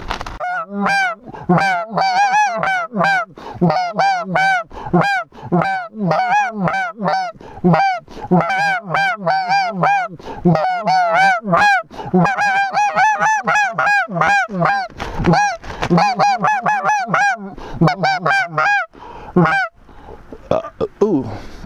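Snow goose calling: a fast, unbroken string of high, rising-and-falling honks, two to three a second, that stops a couple of seconds before the end.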